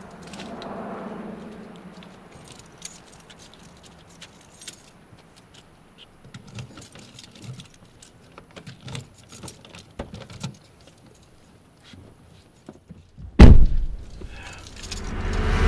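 Keys jangling with small clicks and rattles as someone handles a car's keys and door, then a heavy thump of an SUV door shutting about thirteen seconds in, followed by a loud swelling sound near the end.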